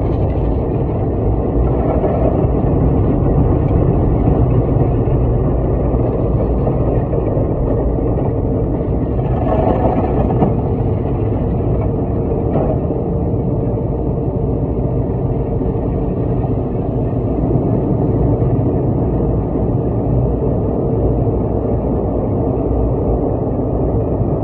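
Automatic car wash heard from inside the car cabin: water jets and spinning cloth brushes working over the windshield and body in a steady, muffled rush.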